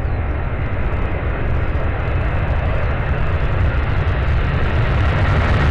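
Airbus A330-342's Rolls-Royce Trent 700 jet engines at takeoff thrust during the takeoff roll: a deep steady rumble with jet roar, slowly growing louder.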